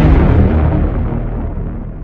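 A loud rumbling burst of noise that fades away slowly and cuts off suddenly at the end.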